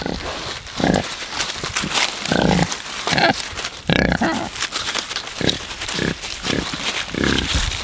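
Pigs grunting close up, a run of short grunts about every second, with rustling in the grass and dry leaves as they root about.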